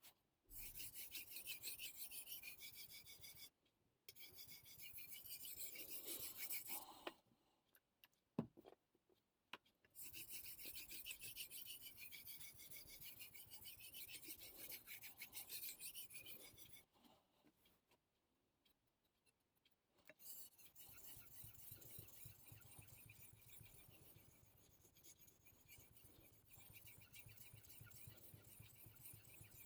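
Damascus steel carving knife blade being stroked back and forth on a Naniwa Superstone whetstone: a rasping scrape of quick repeated strokes, in four runs with short pauses between them. A single sharp click comes about eight seconds in, and the last run is quieter.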